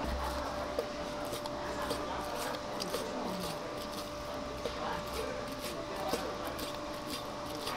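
Chef's knife slicing through steamed sundae (Korean blood sausage) and knocking on a wooden cutting board, with repeated short knocks as each round is cut. A steady hum runs underneath.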